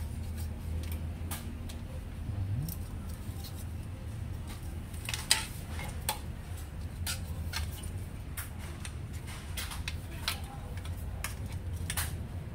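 Scattered clicks and taps of plastic and metal parts of an opened laser printer being handled and lifted out, the loudest a sharp click about five seconds in, over a low steady hum.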